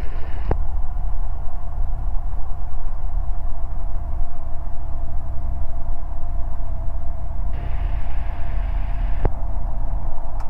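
Ikarus C42 microlight's engine running steadily at low power while taxiing, heard through the cockpit intercom as a loud, even drone with a steady whine. A click comes shortly after the start, and near the end a brief hiss opens for a couple of seconds and ends with another click.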